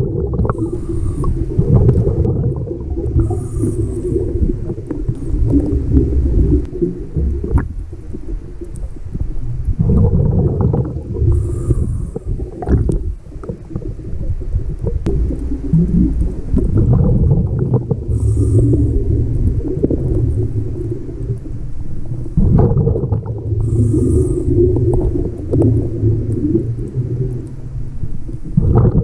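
A scuba diver breathing underwater through a regulator: a short hiss on each inhale and a long, loud burst of exhaled bubbles, one breath every several seconds.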